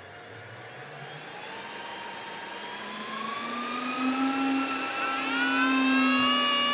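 Cisco Catalyst 3850 switch's cooling fans spinning up at power-on, a whine that sounds like a jet engine. Several tones climb in pitch together as it grows louder over about five seconds, then hold steady near the end.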